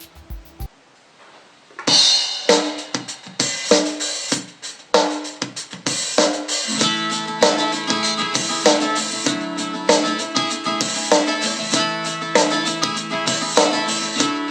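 A song played at full volume through a Logitech X50 Bluetooth speaker in a sound test. It starts about two seconds in with a drum intro, and a fuller bass and chord layer comes in around six seconds.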